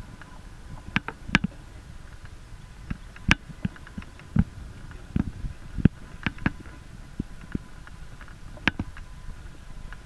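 Dry scrub and twigs snapping and rustling in irregular, sharp cracks as a podenco pushes into a rabbit burrow in the brush.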